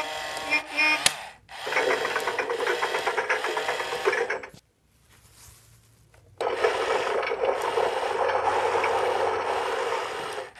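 A plastic toy mechanism running with a rasping, rattling whirr in two stretches of about three and four seconds, with a short pause between; a brief steady electronic tone sounds at the very start.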